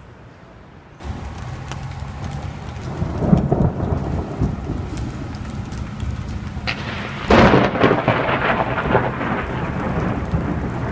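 Heavy rain with rolling thunder, coming in suddenly about a second in. A loud crack of thunder comes about seven seconds in.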